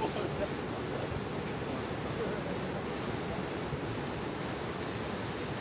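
Steady rush of wind on the microphone mixed with water noise from a boat under way on the river, even throughout with no distinct events.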